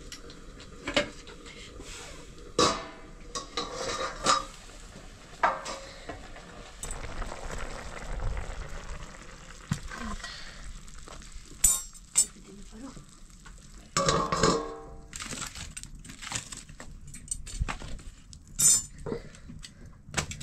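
Metal utensils clinking and scraping against a black iron wok as curry is stirred, in sharp irregular strikes that ring briefly. The curry sizzles in the hot pan between the strikes.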